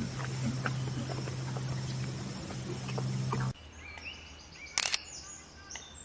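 Outdoor ambience with a steady low hum and faint chirps, cutting off abruptly to a quieter scene of short, high bird chirps with one sharp click.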